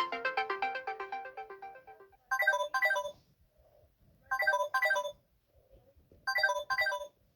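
Samsung Galaxy S22 ringtones. A fast melodic ringtone fades out over the first two seconds. A second ringtone follows: a pair of quick chime notes, repeated three times about every two seconds.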